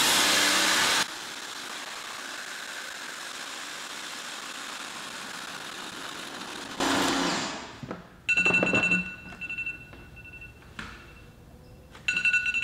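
Teande electric pressure washer spraying through its 40-degree nozzle into a plastic bucket: a steady rushing hiss, louder in the first second, that stops about seven to eight seconds in. Then a phone's countdown-timer alarm sounds, a repeating electronic beeping tone that pauses and starts again near the end.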